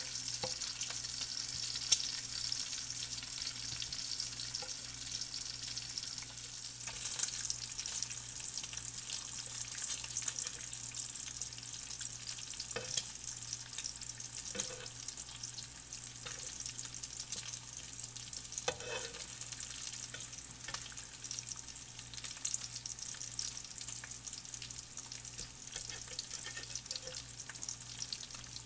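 Bacon sizzling and crackling in hot fat in an electric fry pan, a steady hiss with scattered pops. A few sharp clicks, the loudest about two seconds in.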